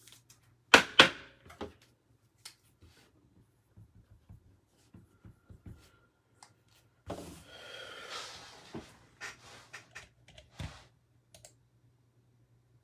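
Computer mouse and keyboard clicks: two loud sharp clicks about a second in, then scattered light clicks and taps, with a brief rustle in the middle.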